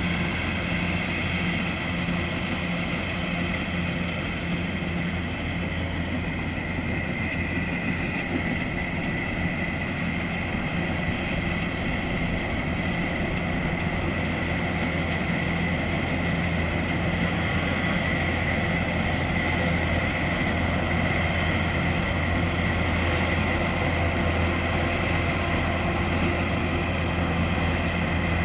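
Kubota DC-105X combine harvester's diesel engine and machinery running steadily at working speed: a constant low drone with a steady higher whine over it.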